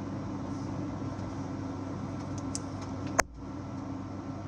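Steady low machine hum with one sharp click about three seconds in, after which the hum is quieter.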